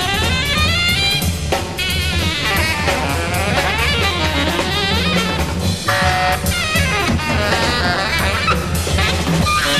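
Free-jazz ensemble playing live: a busy drum kit with snare and rimshot hits drives under wavering horn and reed lines, over a steady low bass.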